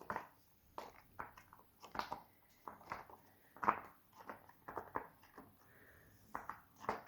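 Silicone pop-it fidget toy (a UFO-shaped letter pop-it) pressed bubble by bubble on its quiet side: a run of faint, irregular pops, about two or three a second, with a short pause near the end.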